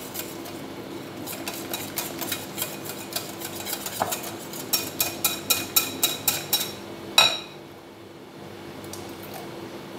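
Metal spoon stirring thick batter in a glass bowl, clinking against the glass in a quickening run of about three or four clinks a second, with one louder ringing clink about seven seconds in.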